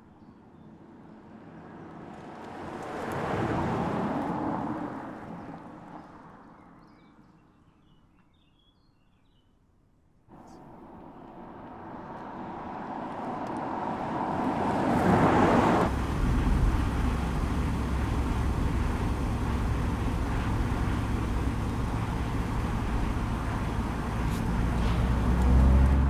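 Mercedes-AMG EQE 53 electric sedan driving past, its tyre and road noise swelling and fading about four seconds in, with a few bird chirps in the quiet lull after. Then, after a sudden jump in level, a second pass builds to a peak past the middle and settles into steady road noise with a low rumble.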